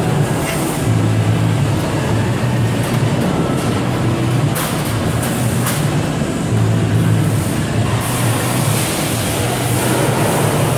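Steady loud mechanical drone of shop machinery, with a couple of sharp metal clanks about halfway through.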